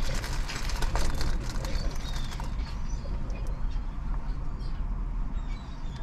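A flock of laughing gulls calling, with many short overlapping calls in the first couple of seconds that thin out after, over a steady low rumble.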